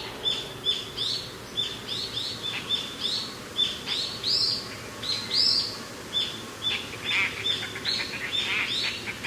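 Birds singing: a quick, repeating run of short, high chirps, about two a second, over a faint, steady rush of wind.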